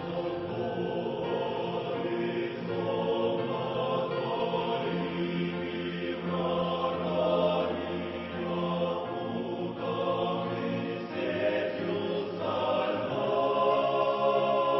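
Choir singing slowly in long held chords, the harmony changing every second or two over a steady low note.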